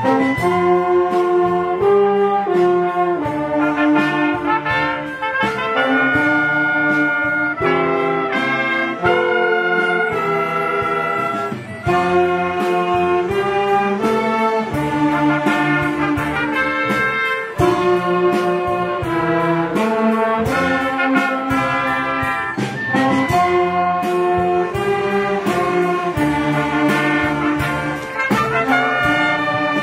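A student band and orchestra playing a tune, with brass such as trumpets carrying the melody in a continuous run of notes.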